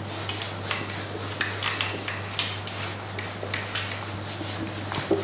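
Whiteboard being wiped clean in a series of short rubbing strokes, roughly two a second.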